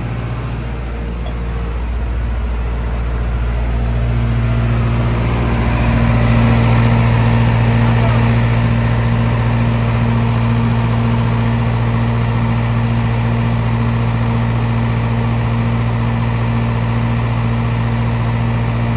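Diesel generator engine running at a steady speed; its hum grows louder around five seconds in, then holds steady.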